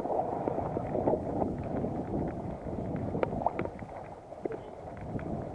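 Wind buffeting the microphone over the rush and splash of sea water against a boat's hull, with scattered faint ticks.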